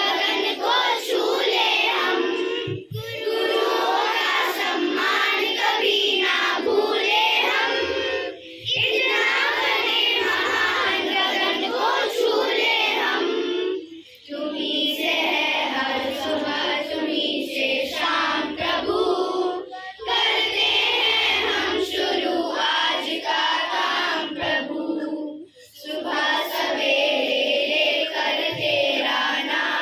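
A group of young children singing a song together in unison, the phrases broken by short pauses every five or six seconds.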